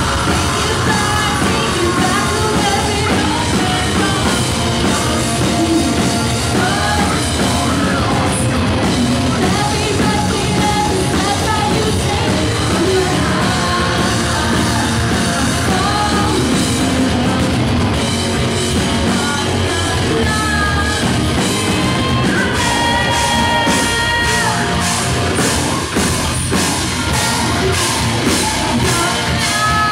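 Live melodic post-hardcore band playing loud, with guitars, bass and drum kit under screamed and sung vocals. In the second half the drums settle into a steady beat of about two hits a second.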